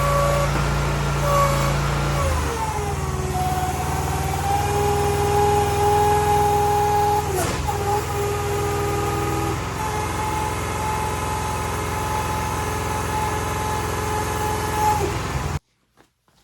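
Small gasoline engine of a towable mini excavator running steadily with its hydraulics. Its pitch drops about two to four seconds in, then holds level, and the sound cuts off abruptly near the end.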